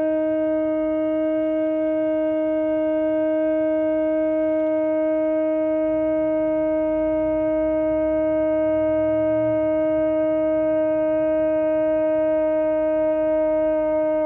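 A long twisted shofar (ram's or kudu-style horn) blown in one long, steady blast, held at a single pitch without a break.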